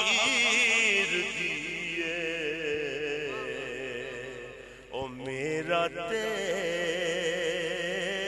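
A man singing a Punjabi devotional manqabat, holding long drawn-out notes with a wavering vibrato; a brief dip about five seconds in, then a new held phrase begins.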